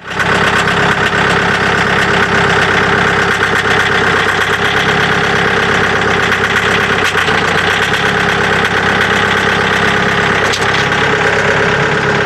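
Mahindra tractor's diesel engine running steadily at a constant speed.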